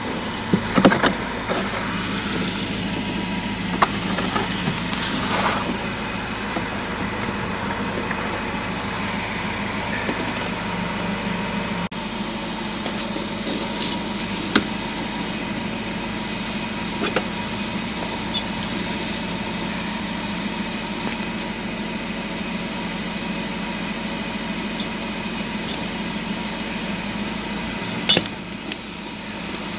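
Steady mechanical hum of a car's running machinery, with a few sharp clicks and knocks from handling tools and plastic dashboard parts while the blower motor resistor is removed. The hum drops in level near the end.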